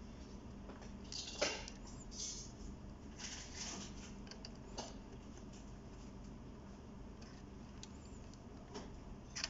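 Fingers handling an open-backed automatic wristwatch and its metal bracelet: a few faint scrapes and small clicks, scattered and irregular, over a steady low hum.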